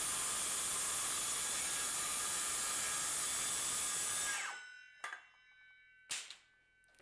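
Cordless circular saw running at the end of a rip cut, then released and winding down about four seconds in, its whine falling slightly in pitch as it stops. Two faint clicks follow.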